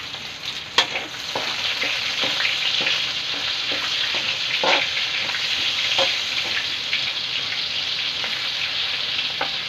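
Pork, garlic and red onion sizzling steadily in hot oil in a steel wok, the sauté stage of pancit bihon, with a spatula stirring and a few sharp clicks of the spatula against the wok.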